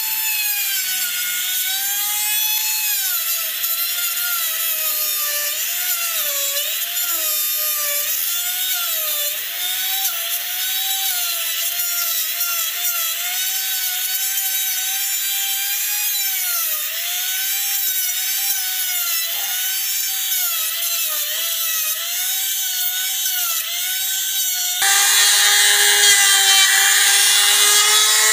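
Handheld trim router with a profile bit cutting a hinge recess into a wooden door frame. It runs with a steady high whine whose pitch dips and wavers as the bit takes load while it is slid along the wood. A few seconds before the end the pitch drops lower and the sound gets louder as the cut grows heavier.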